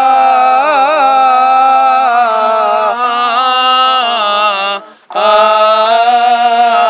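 A man chanting Coptic liturgical chant in long held notes with small ornamental turns, with a short breath break about five seconds in.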